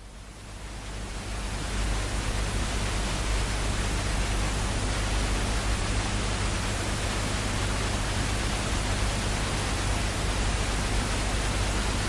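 A steady, even hiss with a faint low hum beneath it, swelling in over the first two seconds and then holding level.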